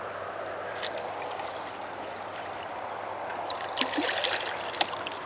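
Water trickling and splashing at the surface as a hooked carp is played in close, with sharp splashes and crackles getting busier over the last second or two.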